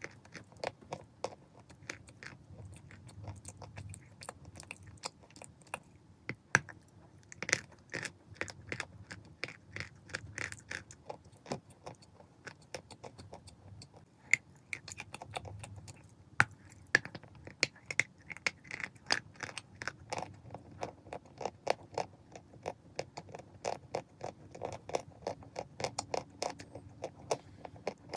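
Chalk being bitten and chewed close to the microphone: a dense, irregular run of sharp, crisp crunches, several a second.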